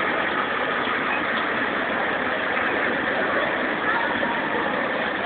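Old pickup truck's engine running at low speed as it rolls past pulling a float, mixed with steady street noise and crowd voices.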